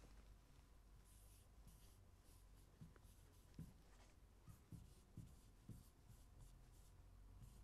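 Faint scratching of a stylus writing on an interactive touchscreen board, a quick series of short pen strokes as a word is written, with a few soft low knocks in between.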